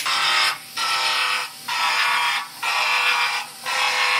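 Pneumatic finger belt sander running against steel body panel metal, triggered in about five bursts of under a second each with short pauses between, a steady whine over the grinding.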